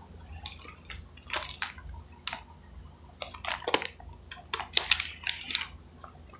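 Irregular rustling and crackling from bedding and fabric being handled close to a phone's microphone, in short uneven bursts that grow denser in the second half.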